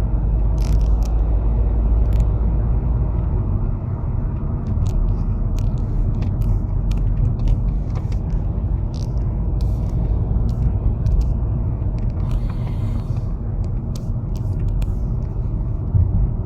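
Volkswagen Passat 2-litre turbo diesel driving at about 100 km/h with the engine warm: a steady low rumble of engine and road, with scattered light ticks.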